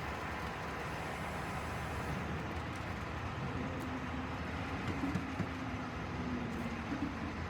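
Steady low rumble of a running engine from heavy vehicles or machinery. A faint humming tone comes in about halfway through, with a few light knocks.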